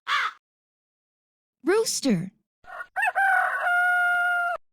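Rooster crowing once: a rising start, then a long held note that cuts off abruptly. Just before it, at the very start, comes the last caw of a hooded crow.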